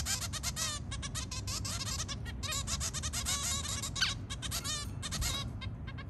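Zebra finches, adults and juveniles, calling in a rapid, overlapping stream of short, repeated calls.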